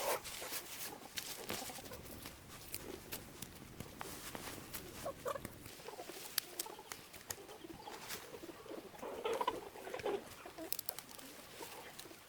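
Chickens clucking at intervals, with brief calls about five seconds in and again around eight to ten seconds, over scattered light clicks and taps.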